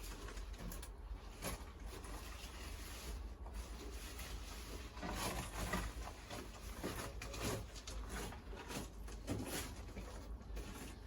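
Tomato plants being pruned by hand: irregular rustling of leaves and snapping of side shoots, busiest in the second half, over a steady low rumble.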